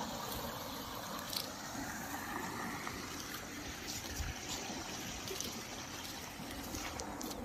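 Canal water running with a steady trickling rush, a few faint clicks over it.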